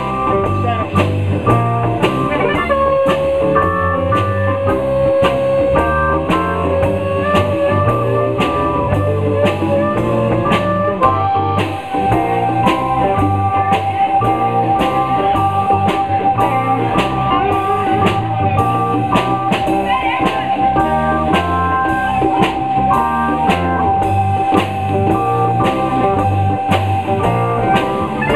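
A live blues band plays in the key of G, with drum kit, guitar and keyboard over a steady beat. Long held notes ride on top: a lower one in the first part, then a higher, wavering one that lasts over fifteen seconds until near the end.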